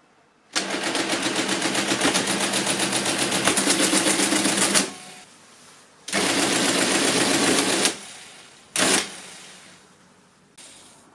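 Friden SBT10 mechanical calculator cycling through a calculation with a fast, even clatter of mechanism strokes for about four seconds. After a short pause it runs again for about two seconds, then gives a brief clack, with a faint click near the end.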